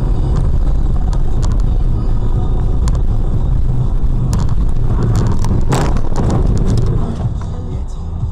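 A car driving, its engine and road noise heard from inside the cabin as a steady low rumble, with a few short clicks and a brief louder noise about six seconds in.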